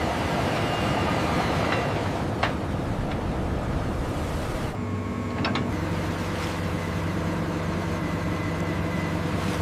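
Heavy crane engine running under a lift, with a few sharp metallic clicks in the first half. About halfway through it settles into a steadier, even hum.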